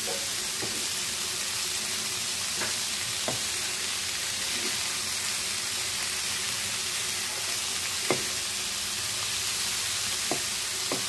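Rugda mushrooms and onion-spice masala sizzling in oil in a frying pan with a steady hiss, stirred by a spatula that gives a few light scrapes.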